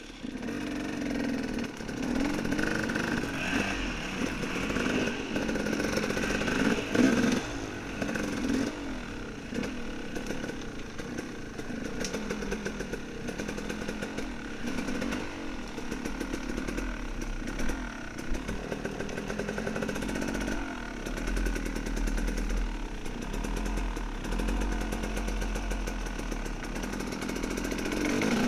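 Dirt bike engine revving up and down, the revs rising and falling repeatedly through the gears.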